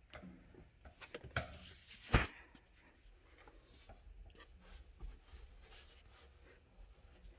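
New rubber windshield seal being pressed and worked into place by hand against the glass, giving scratchy rubbing and small ticks, with one sharp knock about two seconds in.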